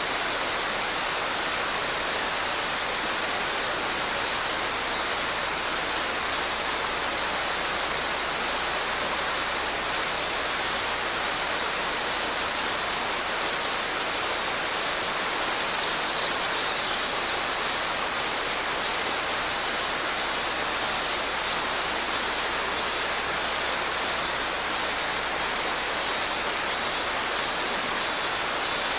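Mountain stream rushing steadily, with a robust cicada (minmin-zemi) calling in a run of repeated pulses over the water, loudest about halfway through.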